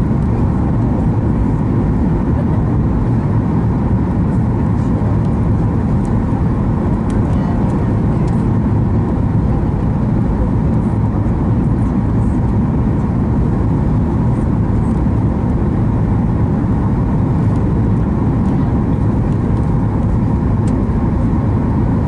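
Cabin noise of a Boeing 737 MAX 8 descending on approach with flaps extended: a steady, deep rumble of engines and airflow, with a faint constant hum above it.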